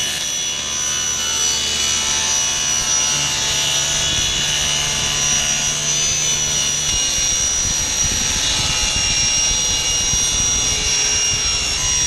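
Table saw with its blade tilted, cutting a bevel through a waste board carrying rows of hot-glued wood segment pieces: the blade runs through the wood with a steady high whine. This is the cut that gives each segment the angle for the rings.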